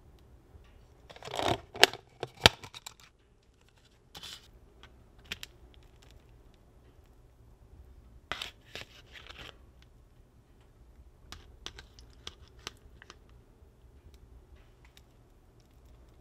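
Kitchen handling sounds as a fish sandwich is assembled: clicks, taps and scrapes of a wooden spatula and a metal fork against a paper plate while salsa is spooned onto the fillet. Two sharp knocks about two seconds in are the loudest, and lighter scattered clicks and scrapes follow.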